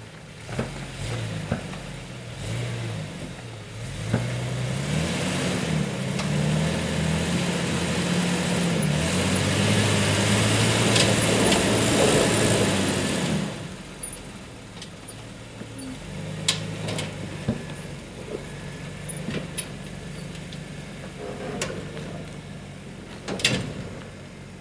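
Lifted Isuzu Trooper's engine revving under load as it crawls over rock ledges, its pitch rising and falling. It pulls hardest from about four seconds in until about thirteen seconds, then drops back to a lower, quieter run, with a few sharp knocks near the end.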